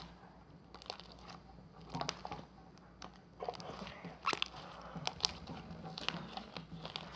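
Homemade glue slime pressed and squeezed by hand for a bubble-pop test: irregular wet pops and crackles as trapped air bursts.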